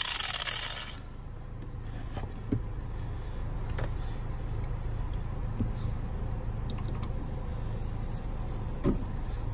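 An angle grinder with a cutting disc spinning down and stopping about a second in, after cutting a pedal arm. A steady low hum follows, with a few light metallic clicks and taps on the cut pedal.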